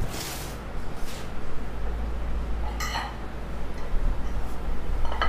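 Ceramic dinner plates clinking on a marble floor as a plate is set down, with a bright ringing clink about three seconds in and another near the end. A short rustle comes at the start.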